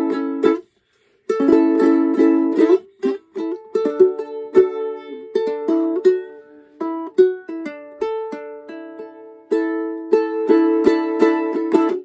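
Ukulele strummed in a reggae pattern, moving from an A chord to a D chord, with short sharp strokes. There is a brief pause about a second in before the strumming carries on.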